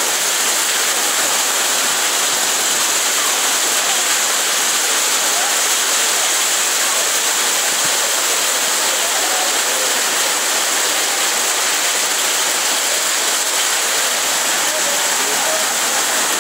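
Heavy hailstorm: hail and rain pelting the ground and foliage in a dense, steady hiss.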